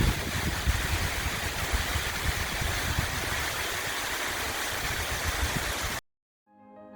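Steady rush of the Scoruș waterfall, with a gusty low rumble underneath, cutting off suddenly about six seconds in; faint organ-like music fades in near the end.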